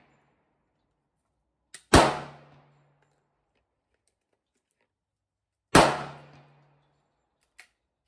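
Two loud gunshots about four seconds apart, each with a short echoing tail. Between them and near the end come faint clicks of a break-action shotgun's breech being worked.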